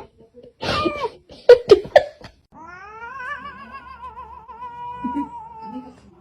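A cat giving a few short, loud meows, then a long wavering yowl lasting about three and a half seconds.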